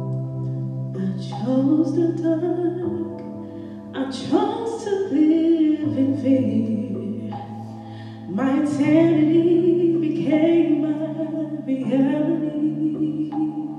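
Woman singing solo with vibrato over held, sustained accompaniment chords that shift a few times. She sings three phrases, starting about a second, four seconds and eight seconds in.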